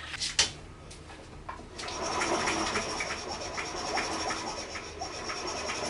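Honda PC50 moped engine being turned over on its pedal starter with the spark plug out, to test for spark: a couple of clicks, then from about two seconds in a steady whirring rub with regular clicks about three a second.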